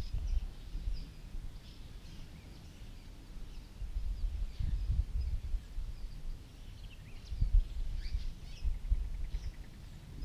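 Many short bird chirps and calls, over a low rumbling noise that swells and fades several times.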